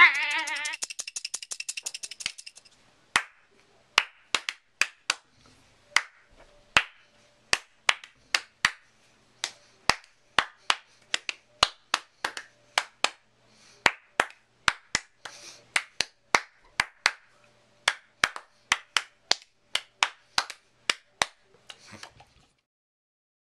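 A person making odd noises: first a wavering, buzzy tone that falls in pitch over about two seconds, then a long run of sharp clicks or snaps, roughly two a second, that stops about 22 seconds in.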